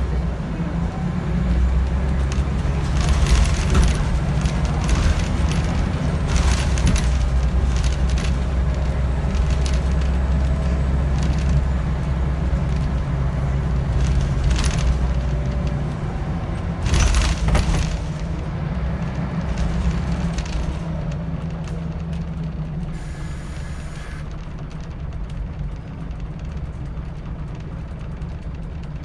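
Scania L94UB single-decker bus's five-cylinder Scania DC9 diesel engine pulling the bus along, heard from inside the passenger saloon, with knocks and rattles from the body and fittings. The engine note drops and quietens over the last third.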